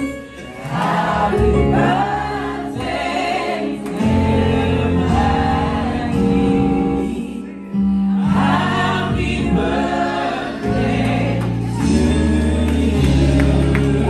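Live music: several voices singing together over held bass notes that change every second or two.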